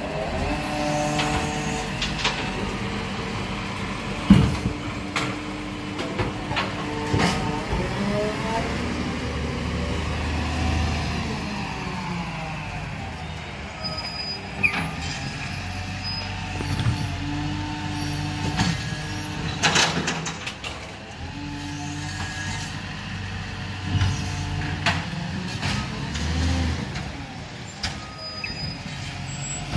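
Automated side-loader garbage truck's diesel engine running as it collects wheelie bins, with its hydraulic lifting arm working. Clunks from bins and brief air-brake hisses break in as it stops and moves on. There is a sharp knock about four seconds in and a loud hiss about twenty seconds in.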